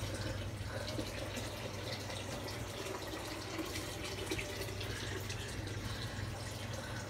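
A coffee scoop scraping in a box of powdered laundry detergent and the powder tipped onto wet sheets in a portable washer's tub, with scattered small clicks over a steady low hum.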